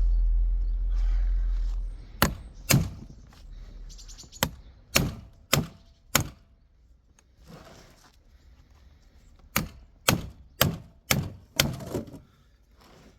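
Hammer blows on a gearbox part, struck in place of a press: six sharp strikes about half a second apart, a pause, then five more at about two a second. A low rumble fills the first two seconds.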